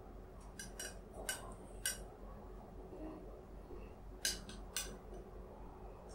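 Metal spoon clinking against a glass tumbler of water: four light, ringing clinks in the first two seconds, then three more around four to five seconds in.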